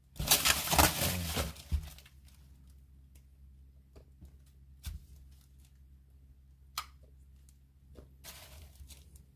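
An adhesive sticker being peeled off the fridge, a loud tearing rip lasting about two seconds. A few faint clicks follow, then a short rustle near the end.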